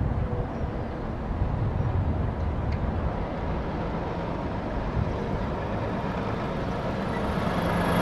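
Semi-truck approaching at low speed, its diesel engine and tyres a low rumble that grows louder near the end as it nears.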